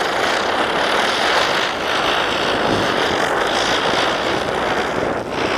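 Ground spinner firework (chakri) spinning and throwing sparks, with a steady, loud hissing whoosh that sags only briefly a few times.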